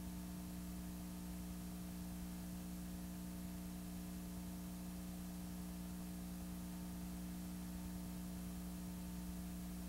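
Steady electrical hum with a few constant low tones and an even hiss, unchanging throughout. It is the blank audio of a silent home movie, which carries no recorded sound of its own.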